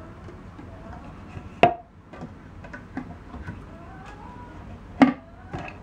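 Wooden cabinet door being opened by hand, with sharp clicks and knocks from its catch and hinges: one about a second and a half in and two more near the end.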